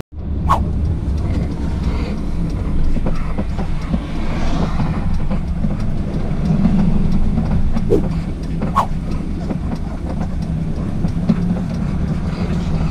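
Sprinter motorhome on the move: a steady low rumble of engine and tyre noise, with a few sharp knocks, one about half a second in and two more near the middle.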